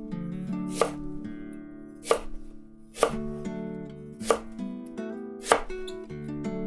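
Kitchen knife slicing a Japanese long onion (negi) on a wooden cutting board: five crisp knocks of the blade meeting the board, about one a second. Background music plays under it.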